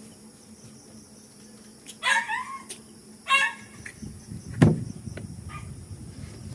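Night insects, crickets among them, chirring steadily, broken by two short, loud animal calls about two and three seconds in. A sharp knock comes a little past halfway, followed by low rumbling.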